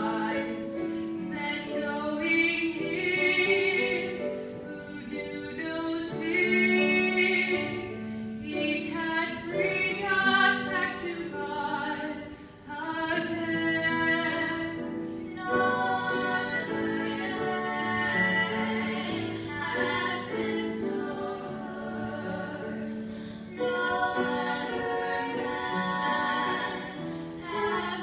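Three young women singing a sacred song in parts, in sustained phrases with a short break about twelve seconds in.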